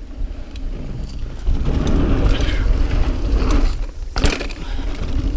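Mountain bike rolling fast down sandy dirt singletrack: a steady rumble of wind and tyre noise, with bike rattle and a sharp clack about four seconds in.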